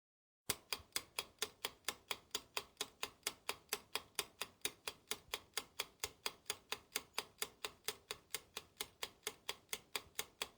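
Clock-like ticking sound effect, even and steady at about four ticks a second, starting about half a second in: a countdown timer for answering a quiz question.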